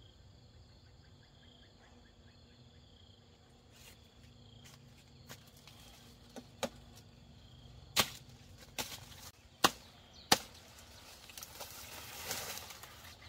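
Sugarcane stalks being chopped with a blade: a series of sharp chops, faint and spaced out at first, then several loud ones less than a second apart. Near the end comes a brief rushing noise.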